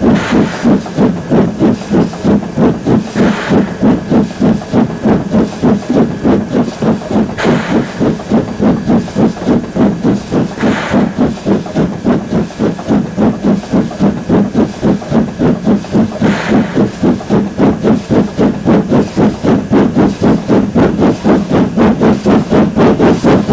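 Steam locomotive A428 running under steam, its exhaust chuffing in a steady rhythm of about three beats a second. A few brief louder rushes of noise come over the beat.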